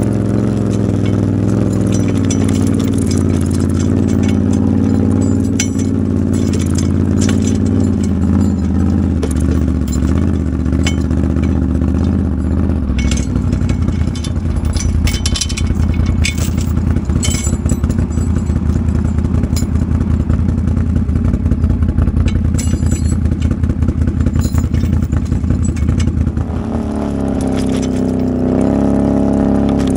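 ATV engine running steadily, with scattered metal clatter and scrapes. About halfway through, the engine note turns into a rough, rapid pulsing; near the end the pitch rises again, as if the throttle opens.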